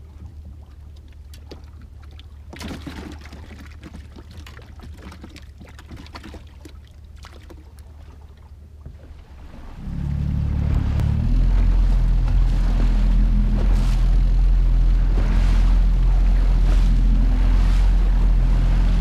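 Boat's outboard motor idling low under light clicks and knocks of gear being handled, then throttled up about ten seconds in and running steadily at speed as the boat gets underway.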